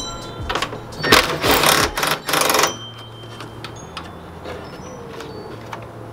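Cordless power driver with a socket on an extension backing out a headlight mounting bolt: a short burst, then a longer run with a brief break, stopping about three seconds in.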